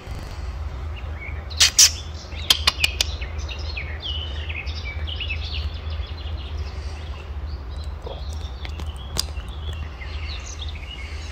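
Small songbirds chirping and singing in short phrases over a steady low rumble. A few sharp clicks near 2 seconds in, and one more near the end, are the loudest sounds.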